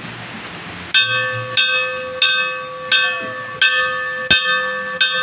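A church bell struck over and over, about one and a half strokes a second, each stroke ringing on into the next; the ringing starts about a second in. A sharp click cuts through about four seconds in.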